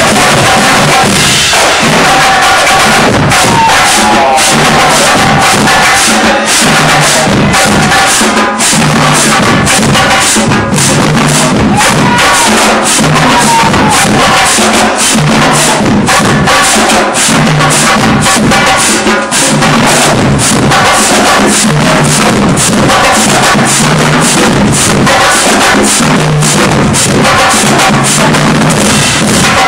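Marching drumline playing a fast, dense cadence: snare drums rattling over pitched bass drum notes that move from drum to drum, with cymbals. Loud and unbroken.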